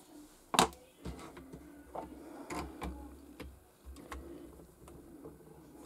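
Light plastic clicks and taps from a stamping platform as a clear acrylic stamp is inked and the platform's hinged clear lid is closed and pressed down onto the card, with handling rustle between. The sharpest click comes about half a second in, with another right at the end.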